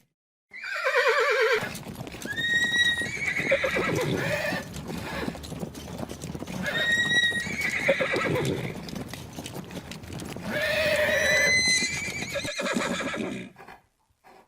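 Horse neighing about four times, each a loud, quavering whinny that falls in pitch, with hooves clopping beneath; the sounds stop shortly before the end.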